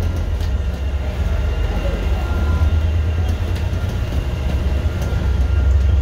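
Steady low rumble of a bus running, heard from inside the passenger cabin, with a faint steady high whine over it.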